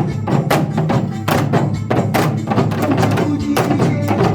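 Live music performance with a steady beat of sharp percussive hits over sustained low notes.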